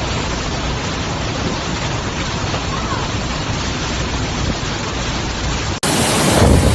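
Heavy rain falling in a steady, even hiss. Near the end it cuts abruptly to a louder stretch of rain with a low rumble.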